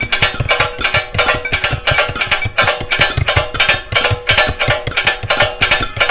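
Background music with fast, busy percussion: rapid sharp strikes over a held note.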